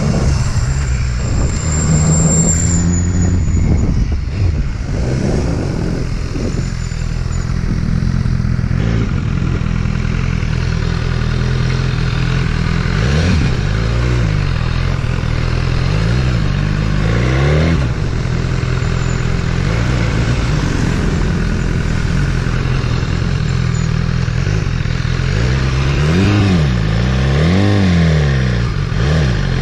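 BMW motorcycle engine running under way, its pitch rising and falling with the throttle, with a few rev swells later on, over wind and road noise.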